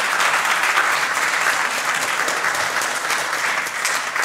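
A congregation applauding: many people clapping at once, a dense steady patter that starts to thin out near the end.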